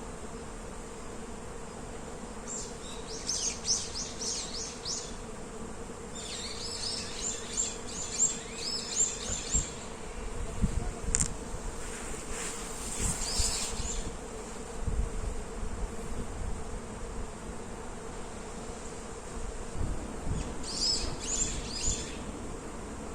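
Honeybees buzzing steadily in blossoming cherry trees, a continuous hum, with songbirds breaking in four times with rapid high chirping phrases. Faint low rumble of wind or distant traffic underneath.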